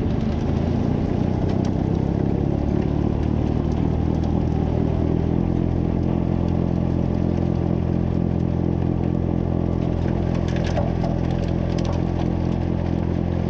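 Small tractor's engine running with its snowblower attachment engaged, clearing snow. The engine note settles to a steady pitch about five seconds in, and a few light ticks come near the end.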